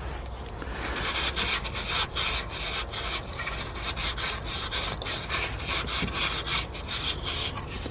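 Alcohol wipe scrubbed hard back and forth over a grimy car chassis rail: quick, repeated scratchy rubbing strokes.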